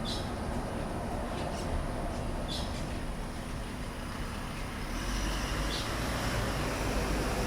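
A car driving by, its low rumble growing louder from about five seconds in. A few short bird chirps sound over it.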